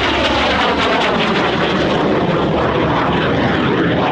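Aermacchi MB-339 jet trainer's turbojet engine heard in flight: a steady, loud rush with a tone that sweeps up and down as the aircraft moves past, here flying slowly with gear down.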